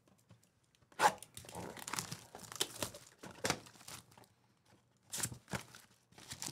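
Trading-card pack wrapper being torn open and crinkled by hand: a run of crackling tears and rustles starting about a second in, a short lull, then more crinkling near the end.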